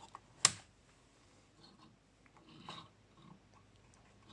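A single sharp click about half a second in from the lab power supply's rocker mains switch being pressed, followed by faint rubbing and handling sounds of a hand on the unit's front panel.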